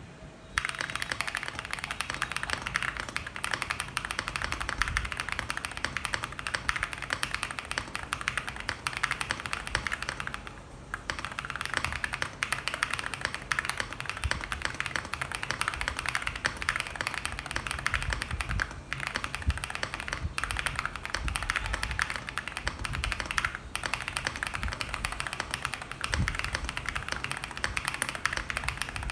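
Fast, continuous typing on a custom ZUOYA GMK81 gasket-mount mechanical keyboard, with AKKO V3 Cream Yellow Pro linear switches under AKKO Neon PBT MDA-profile keycaps. The typing pauses briefly about ten seconds in, then carries on.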